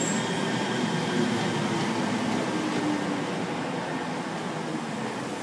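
Class 357 Electrostar electric multiple unit moving along the platform: a steady rumble of wheels on rail with a faint motor hum, slowly getting quieter.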